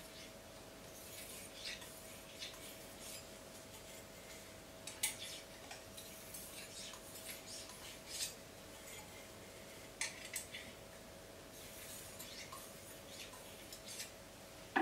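Freshly polished steak-knife edge drawn against the plastic barrel of a Bic pen: faint scraping strokes with a few light ticks. This is an edge test, the polished edge sliding glassy smooth along the plastic and biting into it.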